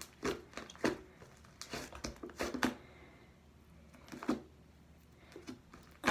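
Fluffy shaving-cream slime being kneaded by hand, giving off irregular sticky clicks and squelchy crackles, with a quieter pause about halfway through. The slime is still slightly sticky and not yet fully activated.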